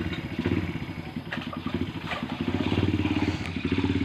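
A small engine running steadily close by, with a rapid, even train of firing pulses.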